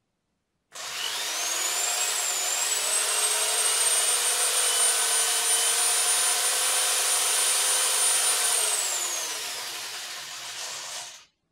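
Electric drill spinning the rotor of a homemade magnetic generator. The motor starts about a second in, its whine climbing as it spins up, then runs steadily. Near the end it winds down with the pitch falling.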